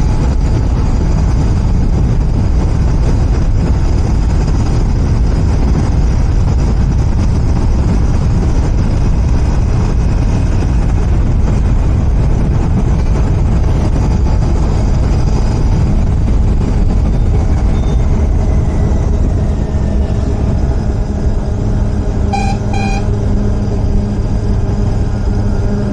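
Royal Enfield Continental GT 650's 648 cc parallel-twin engine on its stock exhaust, running under way with heavy wind and road noise, easing off near the end. About three-quarters of the way in, a horn gives two short toots.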